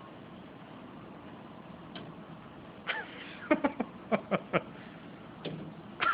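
A bird's beak tapping against window glass: a run of about eight sharp taps in quick clusters, starting about halfway through.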